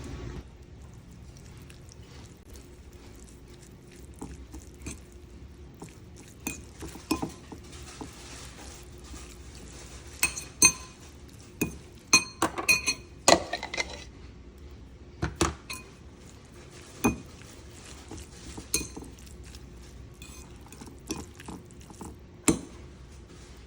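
Dishes, glassware and utensils clinking and knocking while food is prepared, in scattered strikes that are busiest about halfway through. Some strikes ring briefly like glass or ceramic, over a steady low hum.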